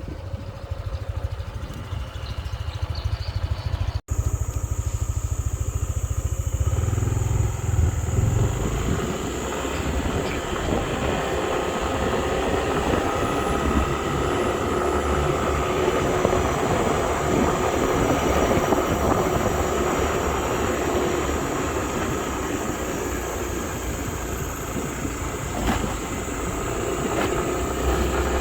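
Motor vehicle running on the move, with a steady heavy rumble of wind and road noise; the sound breaks off sharply and changes about four seconds in.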